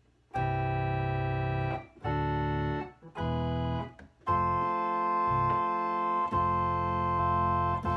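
Yamaha electronic organ played with all its string stops drawn over a bass-pedal line. There are four sustained chords: three short ones, then a long held one.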